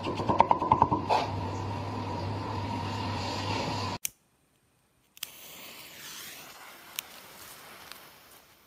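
A cleaver chopping rapidly through red cabbage onto a plastic cutting board for about a second, then steady background noise. After an abrupt drop to near silence, a faint hiss with a click and then a single sharp pop as a firecracker buried in a hole in the soil smokes.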